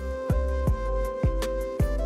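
Background music: sustained melody notes over deep drum hits about twice a second.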